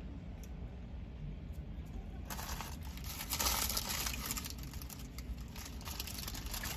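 Paper wrapper of a McDonald's cheeseburger crinkling as it is unfolded by hand. The crackling starts a little over two seconds in and goes on in a dense run of small crackles for about four seconds.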